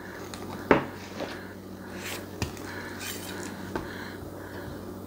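Kitchen knife slicing an avocado around its pit, with a few sharp knocks of the knife against the cutting board, the loudest under a second in.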